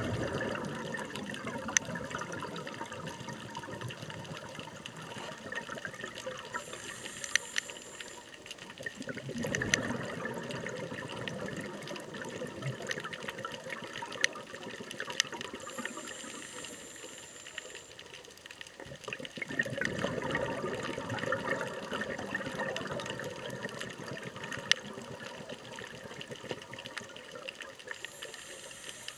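A scuba diver breathing underwater: a short high hiss from the regulator on each inhale, then a long rush of exhaled bubbles, about every ten seconds. Scattered sharp clicks run through it.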